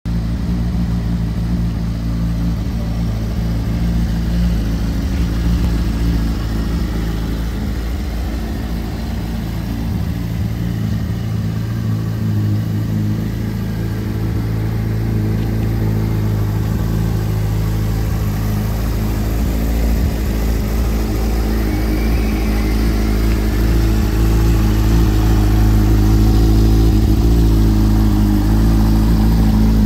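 A 2003 Honda CBR600RR's inline-four engine idles steadily through an aftermarket Akrapovic exhaust. It gets a little louder in the last few seconds.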